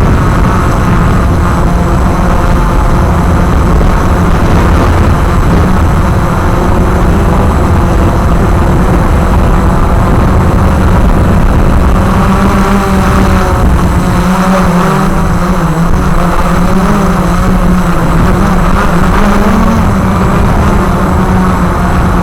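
Walkera QR X350 Pro quadcopter's motors and propellers whirring in flight. The pitch wavers up and down, more so in the second half, as the motor speeds change.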